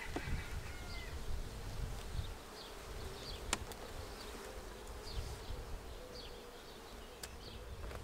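A honey bee colony humming steadily from an open hive, with one sharp click about three and a half seconds in.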